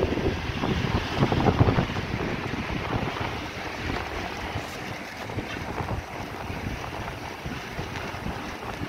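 Wind buffeting the microphone and the rushing road noise of a moving vehicle, with stronger gusts in the first two seconds before it settles into a steady rush.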